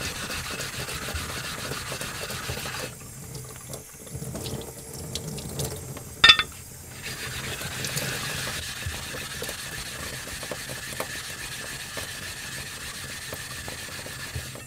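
Ceramic whetstone scraping back and forth on a lapping plate under running tap water, flattening the stone's face. The scraping stops for a few seconds, with a single sharp knock about six seconds in as the stones are switched, then resumes steadily.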